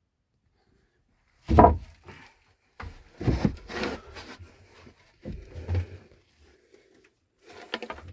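Someone moving about on wooden boards in a cramped attic: several separate scrapes, rubs and knocks of wood, starting about a second and a half in.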